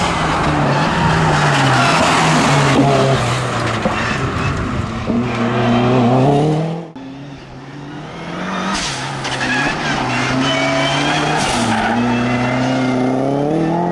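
Ford Focus RS Mk1 rally car engine pulling hard through the gears. The revs climb and then drop at each upshift. About seven seconds in the sound cuts off abruptly and returns quieter, then rises again as the car accelerates away up the climb.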